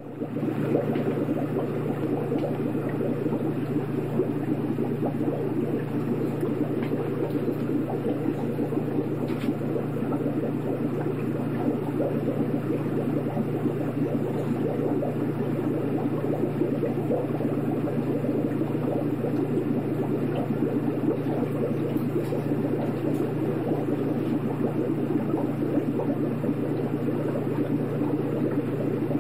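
Aquarium water bubbling steadily over a low, steady motor hum.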